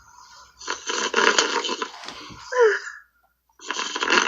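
A man snoring heavily, heard through a Skype phone call: a harsh, rasping snore lasting about a second and a half, a brief squeaky slide in pitch, a pause, then the next snore starting near the end.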